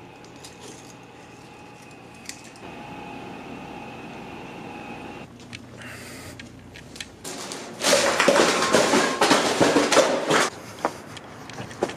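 Steady low room hum with a few small clicks. About eight seconds in, a plastic trash bag rustles loudly with scuffs and knocks for about three seconds, then it settles back to the hum.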